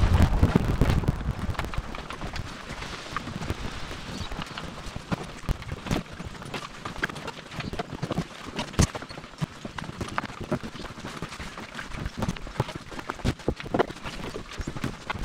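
Quick, irregular footsteps on a dirt portage trail from someone walking under a carried canoe, with scattered knocks. A louder low rumble comes in the first second as the canoe is hoisted.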